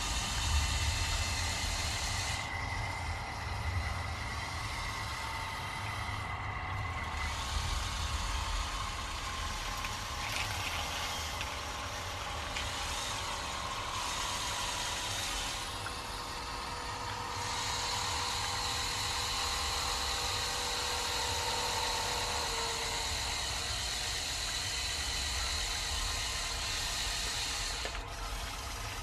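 Small electric motors and gearing of a motorized LEGO Technic 8043 excavator whining as they drive its arm, boom actuators and slewing, the pitch shifting as each function starts and stops. In the middle there is a rattle of dried beans as the bucket dumps a load.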